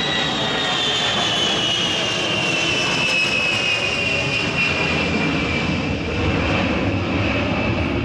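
Boeing E-3A Sentry AWACS jet flying past with its four Pratt & Whitney TF33 turbofans running: a steady jet rumble with a high whine that slides down in pitch as the aircraft passes and moves away.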